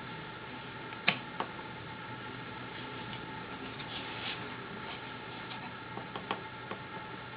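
Wooden parts of a small all-wood Rembrandt-style etching press clicking and knocking as it is worked by hand: a sharp click about a second in and a few more near the end, over a steady background hum.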